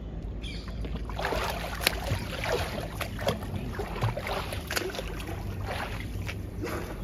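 Splashing of a swimmer doing front crawl in a pool: irregular splashes and sloshing as the arms enter and pull through the water, starting about a second in.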